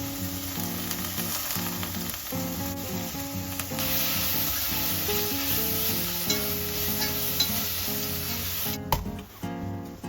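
Food sizzling in a hot frying pan as it is stirred, the sizzle growing louder about four seconds in and cutting off sharply near the end.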